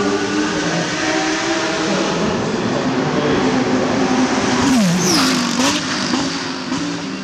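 Two GT race cars passing at speed with their engines running at high revs. About four and a half seconds in, the loudest point, the engine pitch falls sharply and then climbs again as they go past, with a brief crackle.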